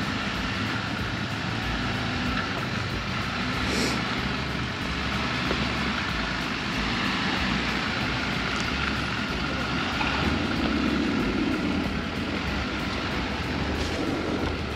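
Jeep Rubicon running steadily at low speed while crawling an off-road trail, with tyre and body noise, and a short sharp click about four seconds in.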